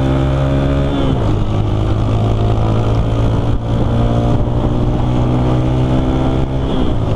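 Motorcycle engine running under acceleration, recorded from the rider's own bike, with wind rush over the microphone. The engine note breaks about a second in, as at a gear change, then pulls steadily as speed builds.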